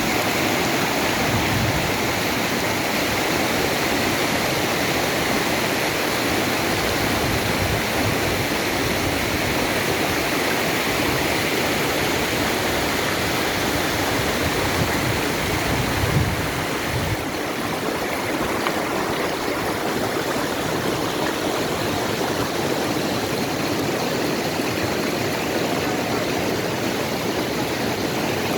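River water rushing steadily over rocks, a constant loud rush, with a brief low bump about halfway through.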